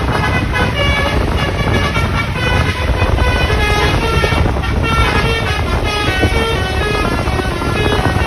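Bus telolet horn playing a quick tune of short, changing notes, over a steady low rumble.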